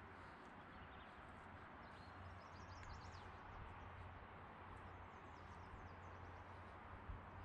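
Faint outdoor ambience: small birds chirping in quick high series over a steady hiss, with a soft thump near the end.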